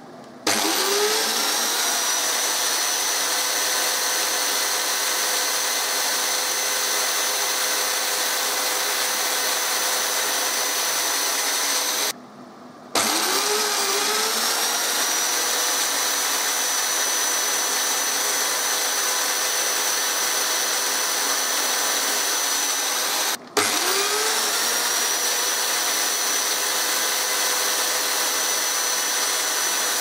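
Corded electric drill in a bench drill stand, running with a 1 mm bit to bore holes in a small plastic keypad part. It spins up with a rising whine about half a second in and runs steadily, then stops and spins back up twice, about twelve seconds in and again near twenty-three seconds.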